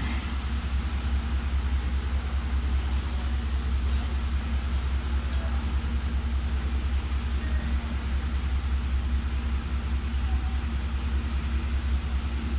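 Steady low engine rumble, like an engine idling, with a faint steady hum above it.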